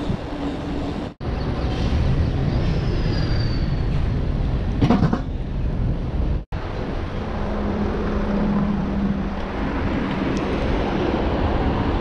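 Steady wind rush and rolling noise from riding a bicycle, with a short louder disturbance about five seconds in. The sound cuts out briefly twice, a little after one second and again about six and a half seconds in.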